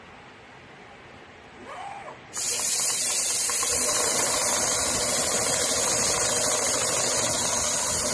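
A loud, steady hiss of rushing air starts suddenly a little over two seconds in, after a quiet low background.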